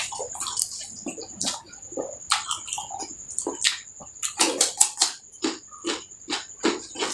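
Close-miked wet chewing and lip-smacking of a person eating rice and curry, in quick irregular smacks and slurps. A steady high-pitched whine runs behind it.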